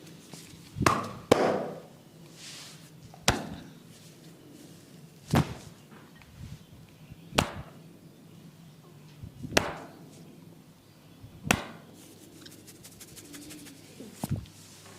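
Sharp percussive strikes of a barber's head massage, about one every two seconds, with two in quick succession about a second in.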